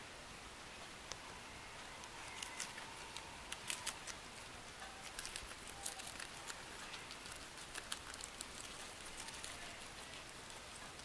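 Guinea pig chewing crisp lettuce: faint, irregular crunching clicks, quickest and loudest in the middle of the stretch.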